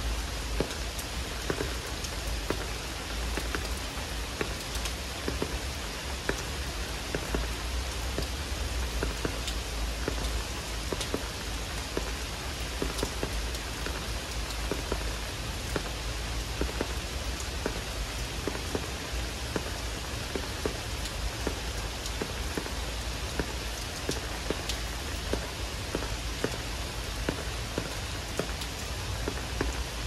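Heavy monsoon rain pouring steadily: a dense, even hiss dotted with many sharp taps of single drops striking close by, over a low rumble.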